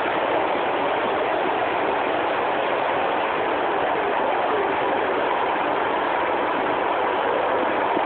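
Steady, even rushing noise with no distinct events.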